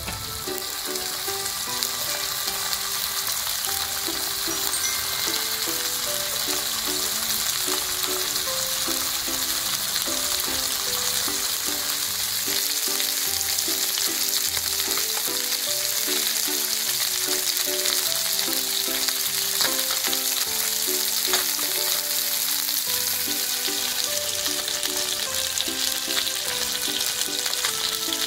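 Whole gizzard shad (jeon-eo) pan-frying in oil, a steady sizzling hiss. Quiet background music plays under it.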